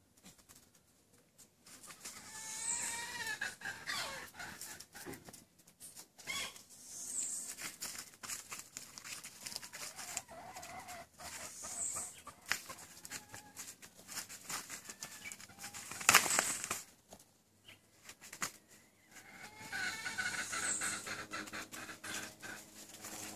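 Black horned goats tussling head to head, with scuffling and rustling, a single loud knock about sixteen seconds in, and wavering animal calls several times.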